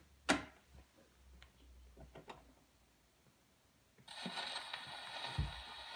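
HMV 102 portable wind-up gramophone: a sharp click as the soundbox and tone arm are handled, then a few faint clicks. About four seconds in the steel needle sets down on the spinning 78 rpm record, and the lead-in groove gives a steady hiss and crackle of surface noise, with a low thump shortly before the music starts.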